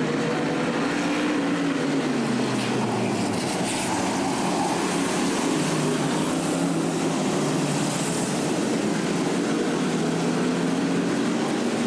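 A pack of figure-eight stock cars racing, their engines running together in a continuous drone. The pitch slides down over the first couple of seconds, then climbs again as the cars speed back up.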